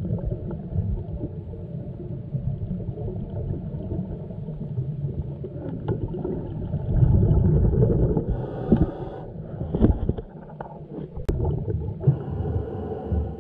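Muffled underwater rumble heard through a camera's waterproof housing, with a scuba diver's regulator exhaling bubbles that gurgle twice, about eight and twelve seconds in. A few sharp knocks come between the two bubble bursts.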